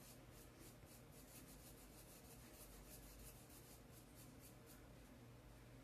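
Faint, rapid scratching of a paintbrush scrubbed back and forth over coarse black sackcloth, about five strokes a second.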